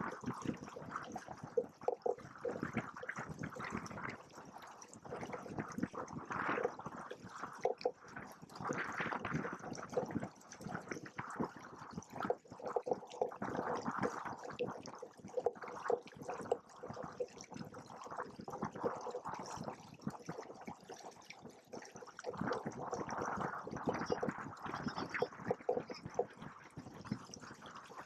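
Water splashing and gurgling in irregular surges against the hulls of a Hobie Cat 16 sailing catamaran under way.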